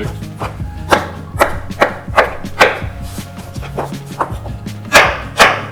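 Kitchen knife cutting zucchini into pieces on a cutting board, about ten sharp strokes at uneven gaps of roughly half a second, the last two the loudest, over background music.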